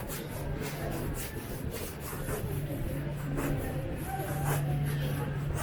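Busy street sounds heard while walking: a steady low hum of traffic that grows stronger about halfway through, with scuffing and rubbing close to the microphone and faint voices in the background.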